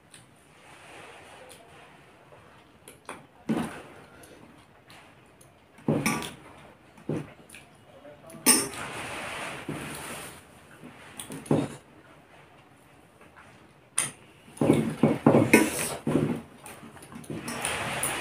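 Eating by hand from a stainless steel plate: fingers scrape and clink against the metal at irregular moments, with a quick run of clatter near the end, along with chewing.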